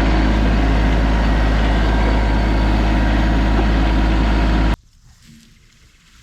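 Compact tractor's diesel engine running steadily at close range, then cutting off suddenly near the end.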